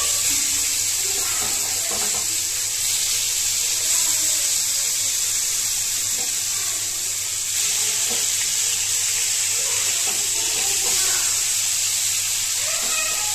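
Catla fish steaks shallow-frying in hot oil in a pan: a steady, even sizzle.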